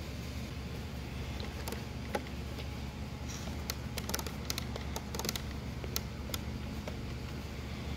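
Small metal spacers, a washer and a bolt being handled and fitted onto an exhaust muffler's mounting boss, giving a scatter of light clicks and taps from about two seconds in to about six seconds in, over a steady low hum.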